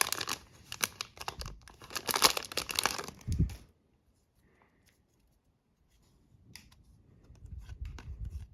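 Wrapper of a hockey card pack being torn open and crinkled: crackling rips that stop about three and a half seconds in. Faint light clicks of cards being handled come near the end.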